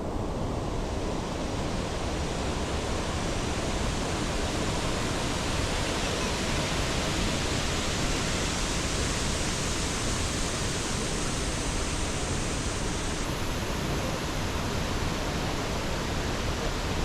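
Steady rushing of a waterfall, an even, unbroken noise of falling water.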